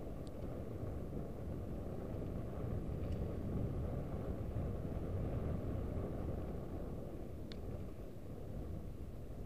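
Steady low rumble of wind on the microphone and tyres rolling on the trail from a mountain bike on the move, with three faint clicks.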